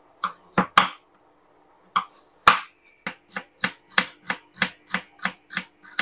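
Knife chopping peeled apple into small dice on a wooden cutting board: a few separate strikes, then a steady run of about three chops a second from about three seconds in.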